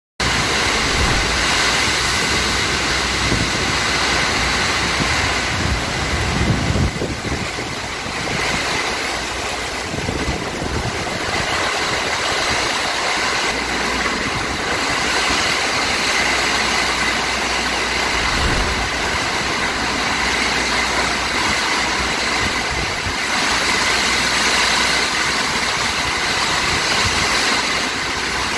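Hurricane rain pouring steadily on roofs and ground, with wind gusting and rumbling on the microphone, strongest about seven seconds in.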